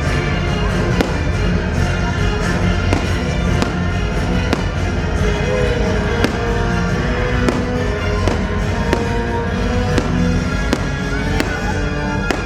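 Fireworks show at sea: repeated firework bangs, roughly one a second, over loud show music.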